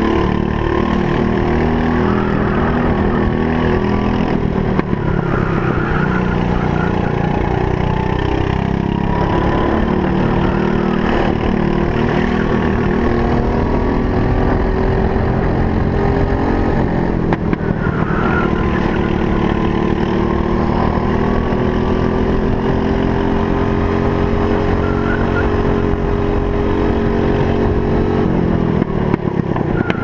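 Briggs & Stratton LO206 four-stroke kart engine heard onboard at racing speed, its pitch rising as it accelerates and falling as the driver lifts for corners. A long, steady climb in pitch through the second half ends in a sharp drop near the end as it slows for a turn.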